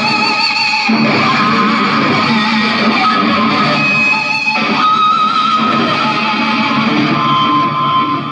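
Amplified electric guitar solo played live: held lead notes with a wavering vibrato over a low backing.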